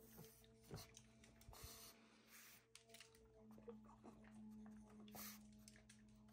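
Near silence: faint rustling and a few light clicks from a dog-treat package being handled and opened, over a low steady hum.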